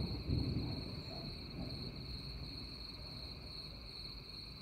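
The tail of a thunder rumble dying away over the first second or so, leaving a low, steady background rumble. Crickets trill steadily and high throughout.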